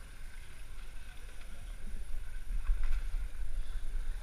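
Water sloshing and splashing in an indoor swimming pool, with a low rumble that grows louder about two seconds in.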